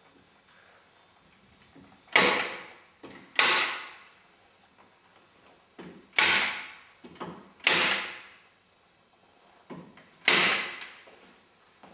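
Staple gun firing five times into fabric against a wall, each shot a sharp snap that dies away quickly, spaced one to two and a half seconds apart, with faint clicks between.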